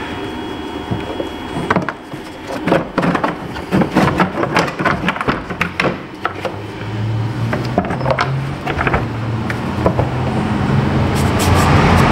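Plastic air-cleaner housing lid clicking and knocking as it is unfastened and lifted off, and the pleated air filter pulled out. From about halfway a low steady machine hum sets in, with a rushing noise that grows louder near the end.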